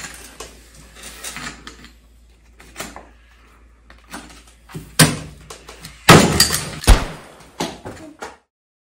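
A series of sharp knocks and thumps, with a loud crashing burst about six seconds in and another hard hit just after, before the sound cuts off suddenly.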